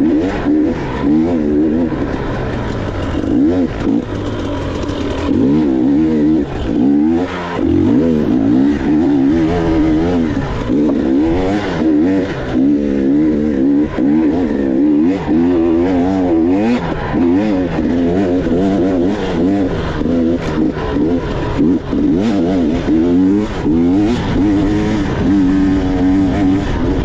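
Dirt bike engine running hard under changing throttle, its pitch rising and falling over and over as the rider accelerates, shifts and backs off.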